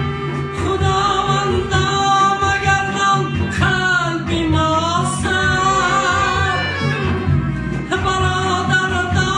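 A Tajik pop song: a man sings long, wavering held notes over an instrumental backing with a steady bass.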